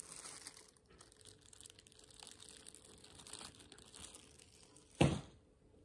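Thin plastic bag crinkling and rustling faintly as it is handled, with one short, louder burst of noise about five seconds in.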